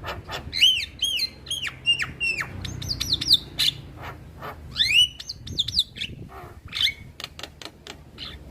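Male Javan myna (jalak kebo) singing: a rapid run of arched, down-slurred whistles mixed with sharp clicks and harsh squawky notes.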